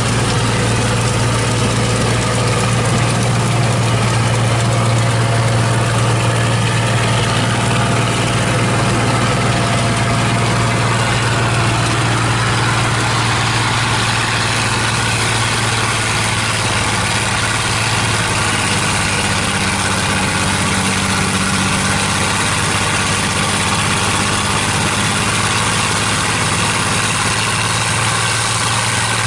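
New Idea 705 Uni System forage harvester chopping corn silage under load: a steady engine drone with a constant low hum over a dense rush of machine noise.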